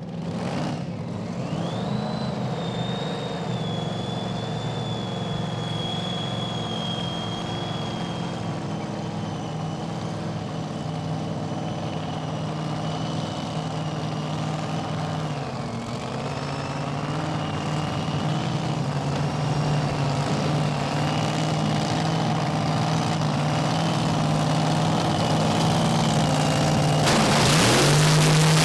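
Top alcohol dragster's engine idling: a steady low drone with a high whine above it. The idle dips briefly about halfway and the level slowly rises, with a louder rush of noise near the end.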